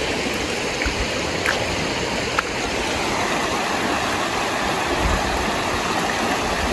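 Fast-flowing river water rushing steadily through rapids, with a few faint clicks.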